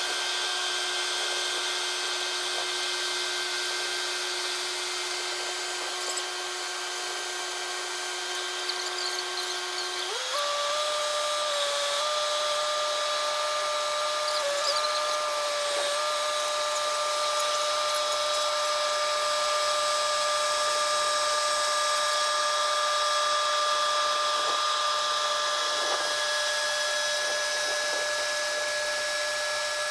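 Bobcat T66 compact track loader running under load, a steady mechanical whine from its engine and hydraulics. About ten seconds in the whine steps up in pitch and holds there.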